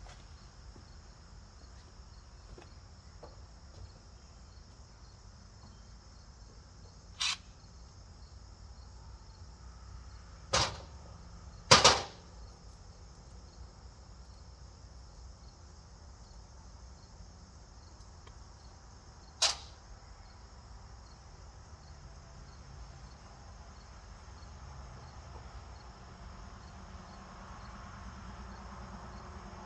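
Crickets chirping steadily, broken by a few sharp knocks, the loudest a quick pair about twelve seconds in.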